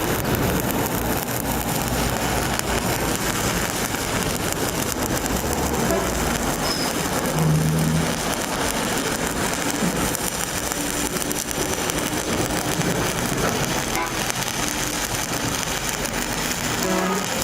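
Stick (shielded metal arc) welding arc crackling and sizzling steadily, struck just before and held without a break.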